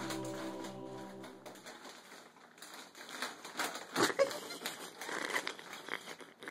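Music fades out over the first second and a half, then a plastic snack bag crinkles and rustles irregularly as it is handled, with a louder scrunch about four seconds in.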